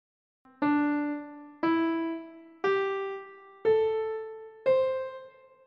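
Background music: five single piano-like keyboard notes rising step by step, about one a second, each struck and fading away.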